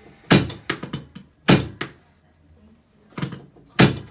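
Heavy thumps from chiropractic low-back adjustments on a treatment table. Four strong thumps come over about four seconds, with lighter knocks between them.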